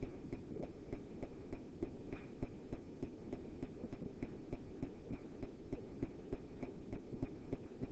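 Faint, irregular tapping and ticking of a stylus writing on a screen, several small taps a second, over a low steady hum.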